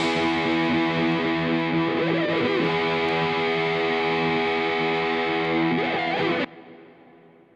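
Background instrumental music with long held chords. It cuts off abruptly about six and a half seconds in, leaving a short fading ring.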